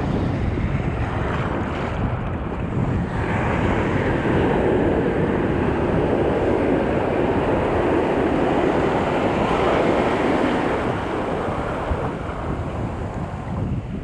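Ocean surf washing on the shore with wind buffeting the microphone; the wash swells about three seconds in and eases off near the end.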